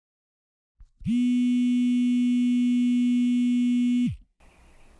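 A loud, steady electronic buzzing tone held for about three seconds, starting abruptly about a second in and cutting off with a slight drop in pitch.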